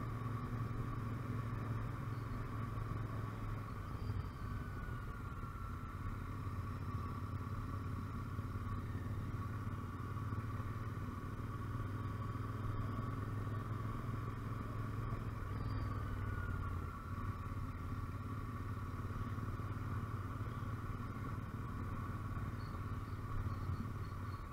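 Motorcycle engine running steadily at low town speed, heard from on the bike: a constant low rumble, with two brief falling whines about four and sixteen seconds in.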